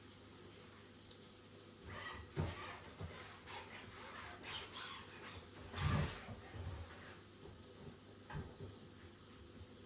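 Light knocks, clatter and rustling of things being handled and cleaned at a kitchen sink. The sounds are irregular, busiest in the middle, with the loudest knock about six seconds in.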